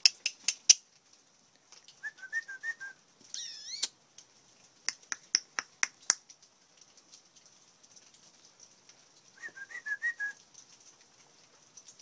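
A person whistling to call hummingbirds to a feeder: a short warbling trill about two seconds in and again near the end, with a rising whistled glide between them. Runs of sharp, high clicks come at the start and in the middle.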